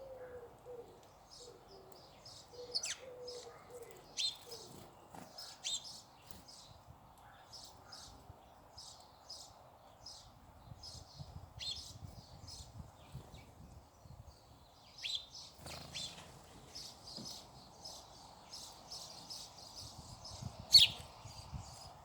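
Small birds chirping and twittering in a tree, a steady stream of short high chirps with a few sharper, louder calls, the loudest one near the end.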